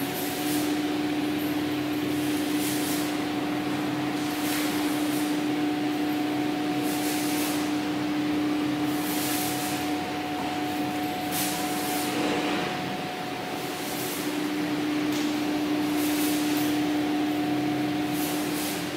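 Ricardo TAD100GE diesel engine of a 100 kW generator set running steadily at governed speed, a constant hum over the rush of its radiator fan. Short hisses recur every couple of seconds.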